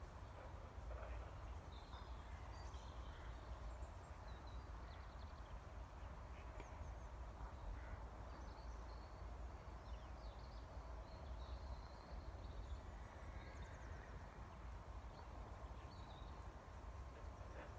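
Birds chirping here and there over a steady low rumble of outdoor background noise.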